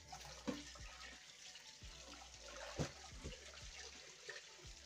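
Kitchen faucet running into a stainless steel bowl of raw chicken pieces as hands rinse them, water splashing steadily, with a few knocks of the pieces and hands against the bowl.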